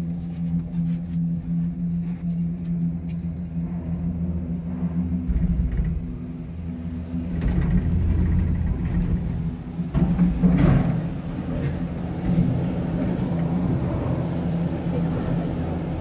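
Cable-car gondola in motion, its cabin giving a steady hum with two low tones. About seven seconds in, this turns into a louder, rougher rumble with a few knocks as the cabin comes into the station.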